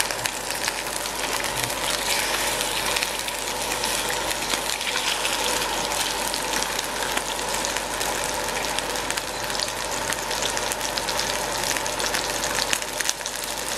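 Salmon fillets frying in hot oil in a stainless steel pan: a steady sizzle with many small crackling pops.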